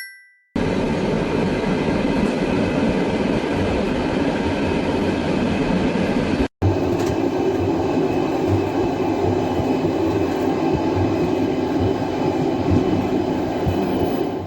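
Steady rumble and rattle of a moving vehicle, with faint low knocks under it. A short two-note chime sounds at the very start, and the noise breaks off for an instant about six and a half seconds in before carrying on.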